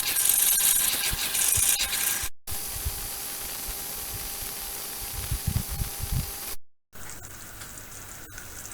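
Sugar syrup boiling in a pan as it cooks toward caramel: a steady hiss with small pops and bubbling. The sound breaks off briefly twice at edit cuts.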